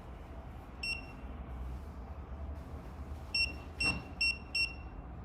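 Smonet smart lock's keypad beeping as a passcode is tapped in: one short beep, then four quick beeps about a third of a second apart, with a faint tap on the keypad among them.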